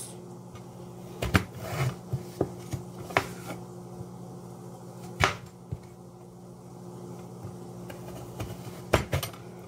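Kitchen knife cutting raw butternut squash on a wooden cutting board: about ten irregular, sharp knocks of the blade on the board, with a steady low hum underneath.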